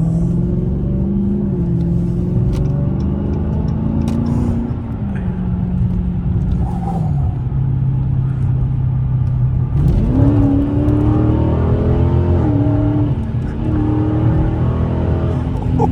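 Dodge Scat Pack's 6.4-litre HEMI V8 running through an exhaust with its mufflers removed, heard from inside the car while driving. The engine note holds steady, drops as the car eases off about seven seconds in, then rises sharply as it accelerates hard about ten seconds in and stays high.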